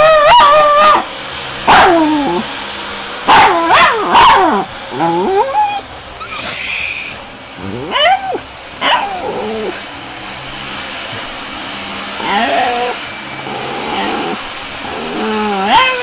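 Schnauzer barking and yelping in a string of loud, high calls, some short and some drawn out and wavering in pitch, with gaps of a few seconds between them.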